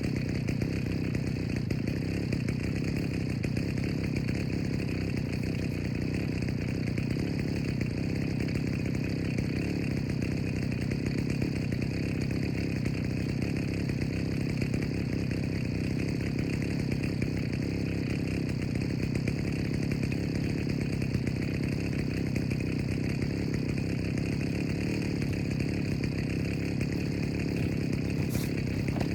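Engine running steadily at one constant speed, without revving or pauses.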